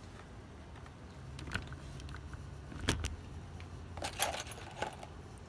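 A few scattered light clicks and clinks of a small nut and bracket hardware being handled against a plastic fan shroud, the loudest about three seconds in, over a low steady hum.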